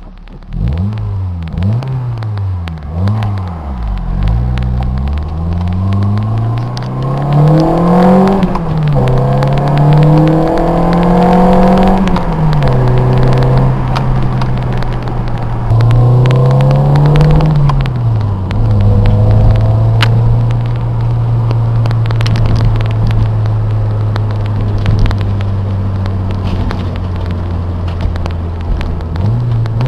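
1991 Toyota Celica GT-S's 2.2-litre 5S-FE four-cylinder through a Pacesetter Monza cat-back exhaust. The engine revs up and down quickly several times, then climbs in pitch with sudden drops in between. Through the second half it holds a steady note, rising again at the very end.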